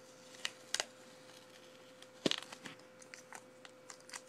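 Packaging on a speed cube's box being handled and pulled off: crinkling and tearing with scattered sharp clicks, the loudest a little past two seconds in.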